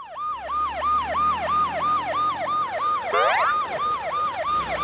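Cartoon police-car siren sound effect: a fast yelping wail repeating about four times a second. A short rising glide sounds over it about three seconds in.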